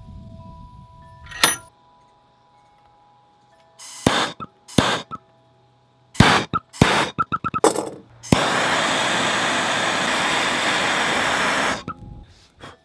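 Handheld gas torch: a few short bursts of hiss and clicking, then a steady flame hiss for about three and a half seconds that cuts off suddenly, as it heats the steel shank of a screwdriver held in a vise.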